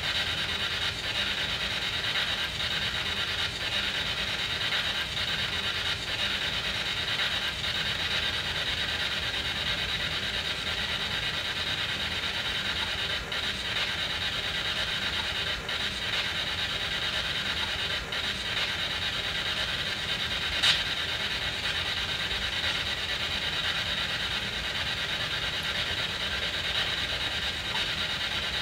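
Spirit box (SB7) sweeping through radio frequencies: steady hissing static with faint ticks and one sharp click about 21 s in. Around the middle, a fragment in the static is taken by the investigators for a spirit's reply, "Go to...?".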